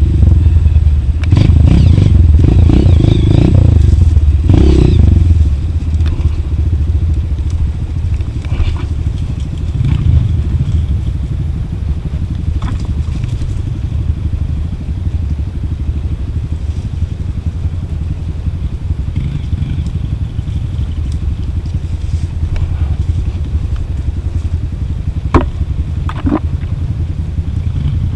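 Steady low rumble of a vehicle riding down a rough dirt trail, with rattles and knocks over it. It is loudest and most jolting in the first five seconds, and two sharp clicks come near the end.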